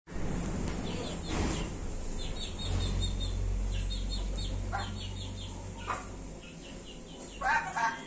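A pet parrot chirping in quick runs of short, high calls, over a steady low hum that fades out near the end.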